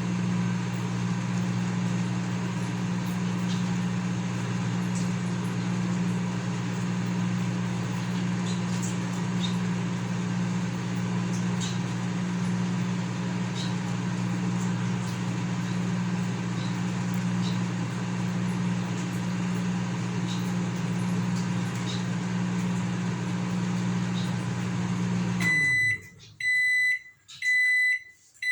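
Consul CM020 microwave oven running with a steady hum, its normal sound with the new magnetron fitted and heating properly. About 25 seconds in the hum cuts off and the oven gives several short high beeps as the timer ends.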